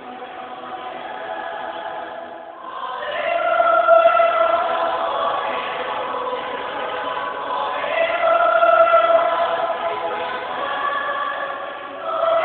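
A choir singing long, sustained chords in several parts, soft at first and swelling louder about three seconds in.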